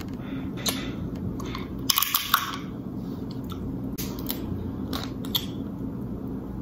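Snow crab leg shells being cracked and snapped apart by hand, a series of sharp cracks with the loudest cluster about two seconds in, over a steady low background hum.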